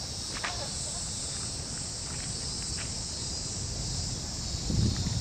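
Steady high-pitched chorus of insects, with a low rumble underneath and a few soft low thumps near the end.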